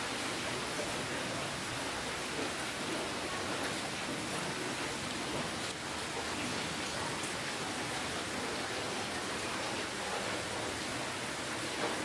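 Steady rainfall, an even hiss of drops with no breaks.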